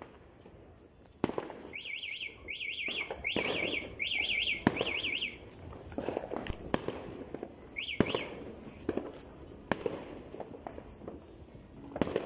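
New Year fireworks and firecrackers going off all around: scattered sharp bangs and cracks. A fast warbling electronic alarm sounds in bursts from about two seconds in for some three seconds, and briefly again about eight seconds in.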